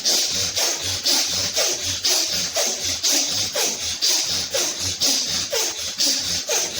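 Rapid, forceful breathing through the nose, alternating nostrils, in a quick even rhythm of about two hissing breaths a second: alternate-nostril pranayama done at speed.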